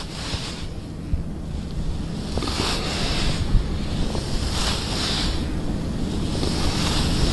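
Wind buffeting the microphone: a steady low rumble, with a soft hiss swelling and fading about every two seconds.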